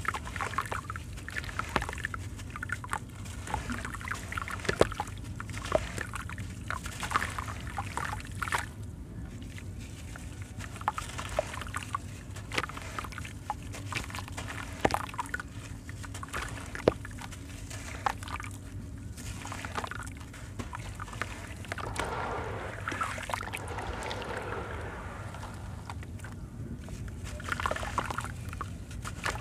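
Chunks of wet sand-cement crumbling in the hands over a tub of water: gritty crunching and crackling as the pieces break apart, with sloshing and the pour of sand and water falling back into the tub.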